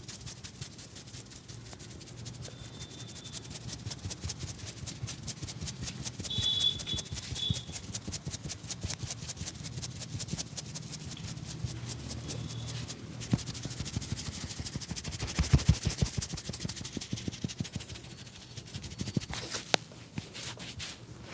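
A barber's hands rubbing rapidly over a customer's head during a massage, many strokes a second in a steady rhythm, with a few louder strokes a little past the middle.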